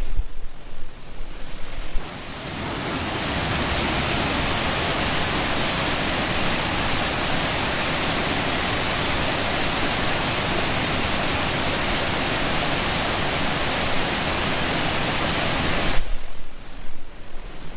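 Rushing water: a steady, full hiss that swells in over the first few seconds, holds, and cuts off suddenly near the end. Before and after it there is a low, uneven rumbling noise.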